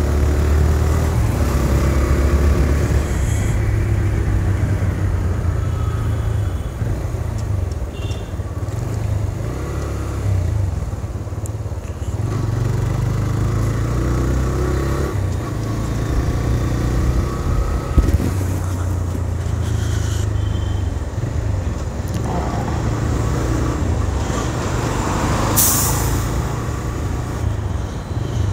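TVS Raider 125's single-cylinder engine running while riding, its note swelling and easing with the throttle, over wind and road noise. A sharp click about two-thirds through and a brief hiss near the end.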